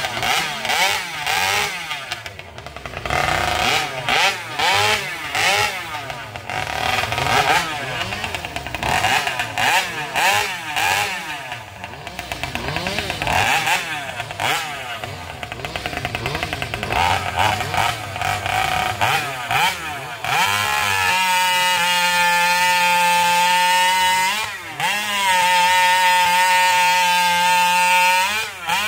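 Competition chainsaw's two-stroke engine blipped up and down over and over for about twenty seconds, then held wide open at a steady high pitch, with one brief dip a few seconds later.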